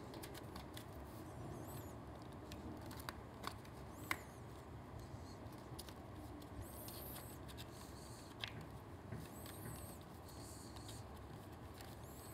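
Faint hand-handling noises: soft rustling and a few small clicks as motorcycle wiring and a plastic part are worked into place by hand, the sharpest clicks about 4 and 8.5 seconds in, over a low steady room hum.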